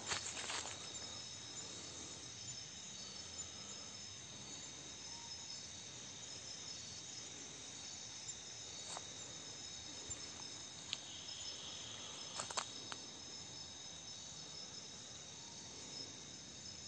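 Night insect chorus, crickets trilling steadily at several high pitches, with a few faint clicks.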